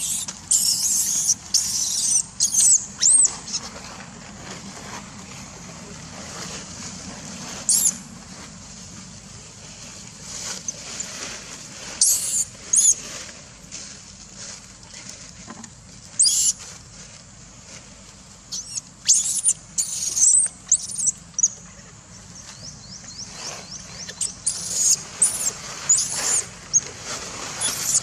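Baby macaque squealing: short, very high-pitched squeals in clusters a few seconds apart.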